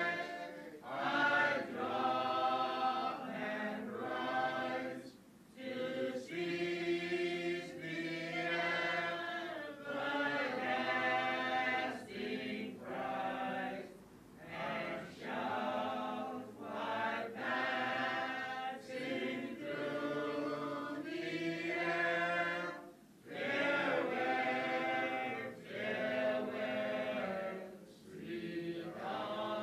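A choir singing in long held phrases, with a short pause between phrases every few seconds.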